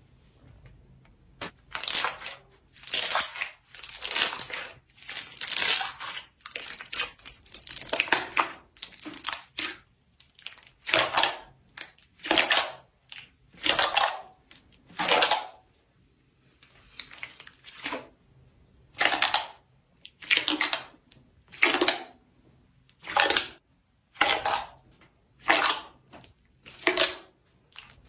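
Slime being squeezed and pressed by hand in repeated strokes, with a crackling squish on each press. The presses come irregularly at first, then settle to about one every second and a half.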